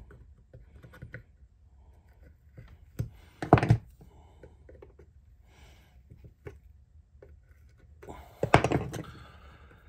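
Small hand-held cutting tool scraping and nicking at the wood of a rifle stock while deepening the trigger inlet: faint scrapes and ticks, with two louder clusters of knocks about three and a half and eight and a half seconds in.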